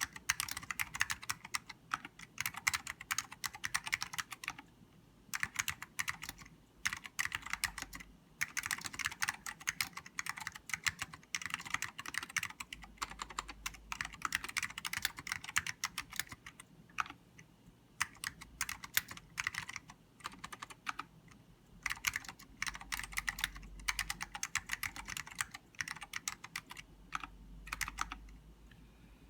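Typing on a King Saver keyboard with salmon Alps switches and dye-sublimated keycaps: rapid runs of sharp keystrokes broken by short pauses every few seconds.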